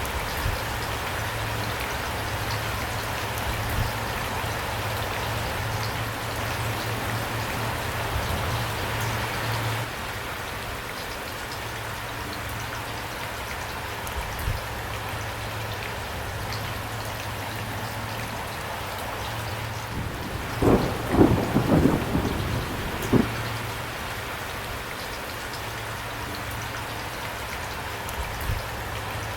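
Steady heavy rain falling, with a short burst of crackling thunder about two-thirds of the way through.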